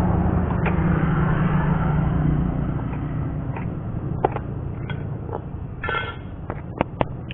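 A low rumble, like a passing vehicle, that fades over the first two to three seconds, then sharp metallic clinks and a short scrape as pieces of steel square tube are picked up and knocked together on a concrete floor.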